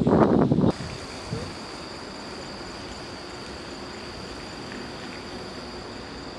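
Insects trilling steadily at one high pitch over a low background hiss. The first split second holds a loud burst of rough outdoor noise that cuts off abruptly.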